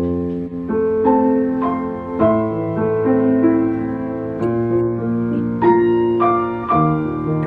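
Keyboard instrument playing slow chords, each held for about a second before the next.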